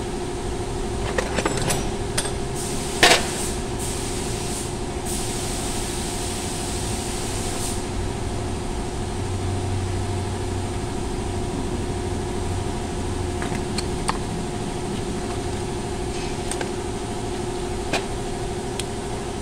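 A steady mechanical hum with a constant droning tone, under a few sharp clicks and one louder knock about three seconds in as the brake and hub parts are handled.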